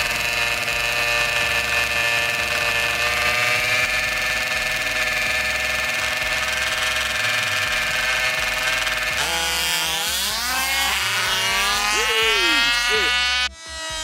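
Small two-stroke gas engines of 1/5-scale RC drag cars idling steadily on the start line, then revving hard with rising, sweeping pitch as they launch about nine seconds in.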